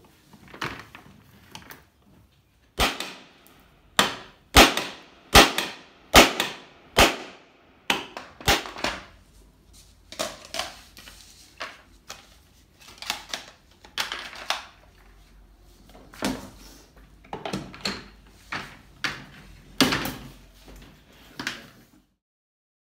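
Hammer blows on an office chair's gas-lift cylinder and plastic five-star base, knocking out the failed cylinder: a run of six sharp strikes under a second apart, then irregular knocks and clatter as the base and cylinder are handled.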